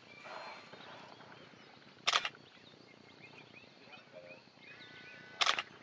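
Two sharp camera shutter clicks, about three seconds apart, each lasting a fraction of a second.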